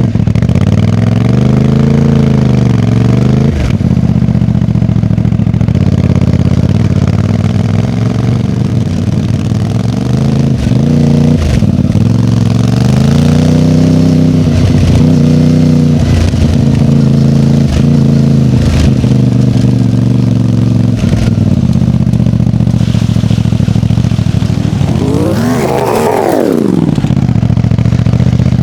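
MT450 motorcycle engine running through its exhaust, its pitch swelling and dropping several times as the throttle is blipped. Near the end comes one quick, sharp rev that climbs high and falls straight back.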